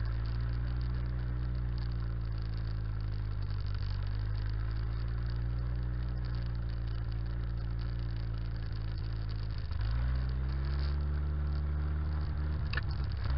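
1956 Jeep CJ5's Willys Hurricane four-cylinder engine running as the Jeep drives slowly through snow, its note rising and falling gently with the throttle. About ten seconds in the engine picks up and runs a little louder.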